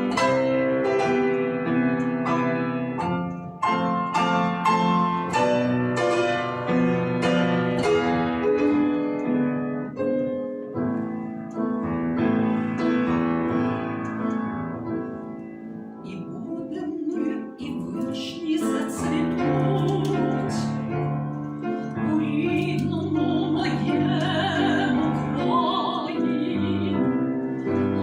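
Classical piano playing on its own, then an operatic voice enters a little past halfway, singing sustained notes with vibrato over the piano accompaniment.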